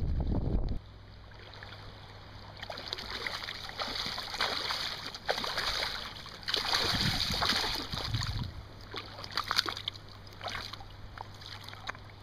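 Water splashing and sloshing in uneven swells, with scattered small clicks. A short burst of wind rumbling on the microphone at the very start cuts off abruptly.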